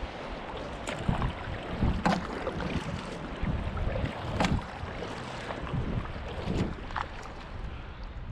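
A canoe being paddled: water splashing and dripping at the paddle strokes, with a few sharp knocks, over a steady rush of wind and moving water.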